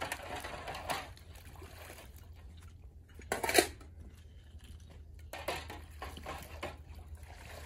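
Metal pot and utensils clattering at a wood-fired clay stove, with one loud clank about three and a half seconds in and lighter knocks later.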